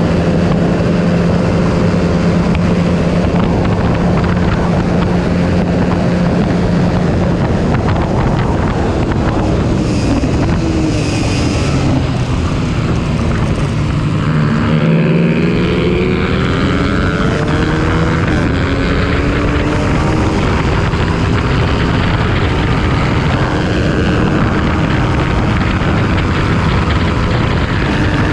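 Honda CBR125R's single-cylinder four-stroke engine running hard at high revs, with wind rushing over the microphone. About halfway through the revs drop as the bike slows for a corner, then climb again as it accelerates out.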